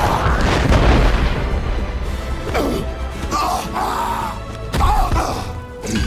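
Animated-film action soundtrack: orchestral score with heavy booms. The deepest booms come in the first second and again just before the five-second mark.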